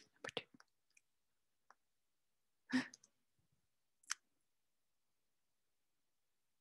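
A handful of separate computer mouse and keyboard clicks, about five, spread over the first four seconds.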